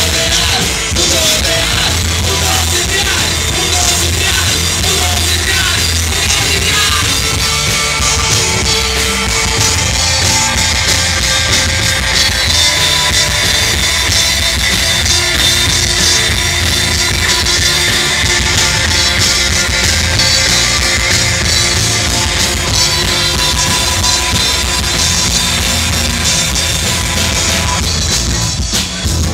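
Rock band playing loud with distorted electric guitars, electric bass and drum kit. The playing stops right at the end.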